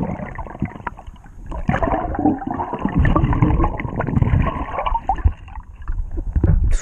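Muffled underwater bubbling and gurgling as air bubbles stream up past a diver's head, coming in irregular surges with a brief lull about a second in.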